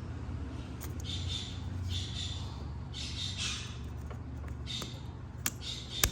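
A bird squawking, five harsh calls about half a second each, over a steady low hum, with a few sharp clicks, the loudest just before the end.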